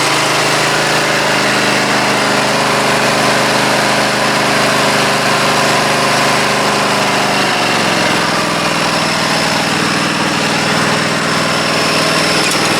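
Husqvarna Z254 zero-turn mower engine running steadily just after starting, with a replacement idler pulley fitted. About two-thirds of the way through, the engine speed drops a step and settles at the lower speed.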